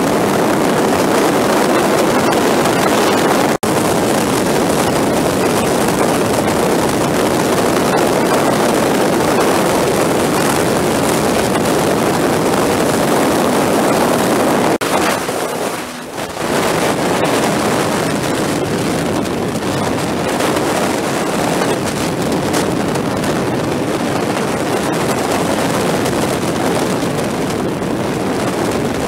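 Steady rush of wind and engine noise from a motorcycle at highway speed, played back at four times speed. The level dips briefly just past halfway.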